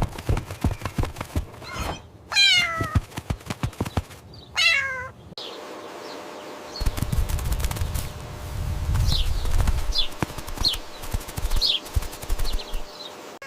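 A cartoon kitten meowing: two long meows falling in pitch about two and four seconds in, later several short high mews. Knocks and a low rumble sound underneath.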